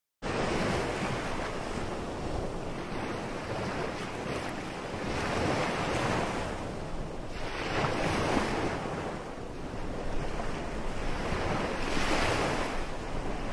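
Ocean surf washing onto a beach, a steady rush that swells and eases about every three seconds as waves break.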